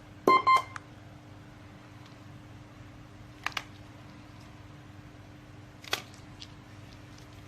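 Two short electronic beeps in quick succession right at the start, followed by a few faint clicks, over a steady low electrical hum.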